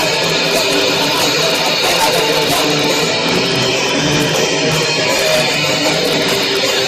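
Live band playing loud, strummed electric guitar music at full volume, recorded with overloaded, distorted sound.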